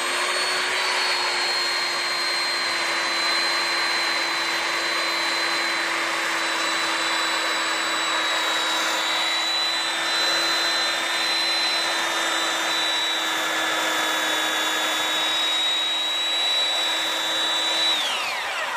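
Electric sander running steadily with a high whine as it grinds down knot lumps on a cedar timber. It is switched off near the end, and its whine falls away as it spins down.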